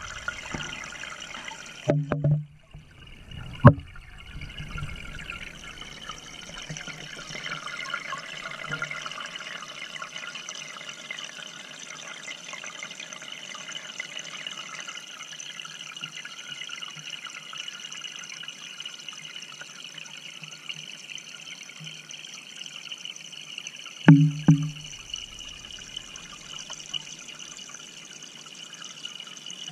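Steady trickling water noise inside a goldfish aquarium, picked up by a submerged action camera, with a few dull knocks in the first four seconds and again after about twenty-four seconds.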